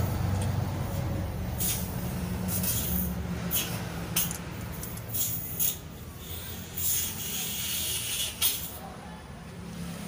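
Steel timing chain clinking and rattling in irregular short clicks as it is fed by hand over the sprockets and guides of a Toyota 1GD-FTV diesel engine, over a low steady background hum.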